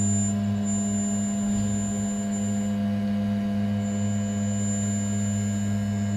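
500 W brushless spindle of an RZ420 desktop CNC mill running at 6000 rpm while finishing a pocket floor in A7075 aluminium: a steady hum with a thin high whine that drops out for about a second midway.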